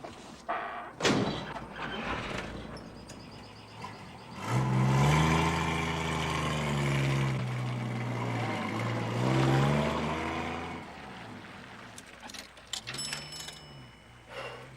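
A vehicle engine accelerating, its pitch rising and falling twice as it goes up through the gears, after a sharp knock about a second in. A shorter swell of engine pitch comes near the end.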